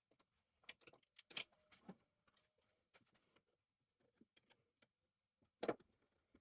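Faint, irregular clicks and knocks of small hard objects being handled, a cluster of them in the first two seconds and one louder knock near the end.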